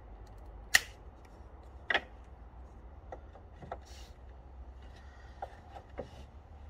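Wood knocking and tapping as pine slats and small wooden spacer blocks are handled and set in place on a bench frame. There is a sharp knock about a second in, another about a second later, then several lighter taps.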